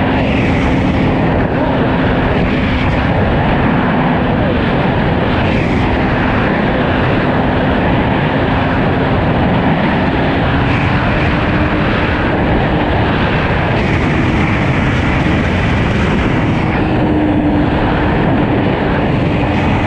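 Suzuki GSX-R1000 inline-four running at a steady cruise, a constant engine drone under heavy wind rush, the engine note edging slightly higher about two-thirds of the way through.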